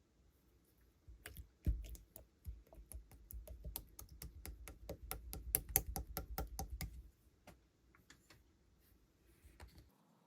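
Clear slime being worked by hand, giving a quick run of sharp clicks and pops that thickens into a dense patter for several seconds, then thins to a few scattered clicks near the end.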